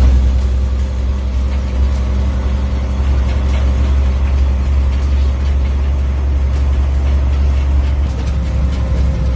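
Tractor engine running steadily while driving along a bumpy field track, heard from inside the cab as a loud, deep, even hum.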